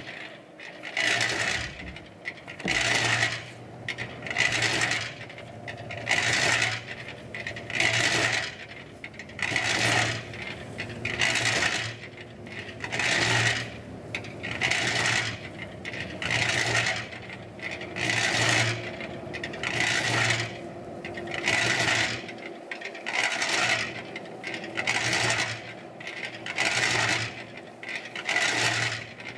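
Small electric drum concrete mixer turning, its load rattling and scraping around the drum in a regular surge about every second and a half, over a low motor hum.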